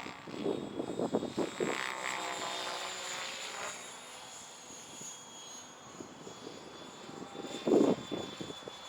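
Align T-Rex 700E electric RC helicopter in flight, the whine of its 700MX brushless motor and rotor head drifting up and down in pitch as it manoeuvres. Gusts of wind buffet the microphone in rumbling bursts, the loudest about eight seconds in.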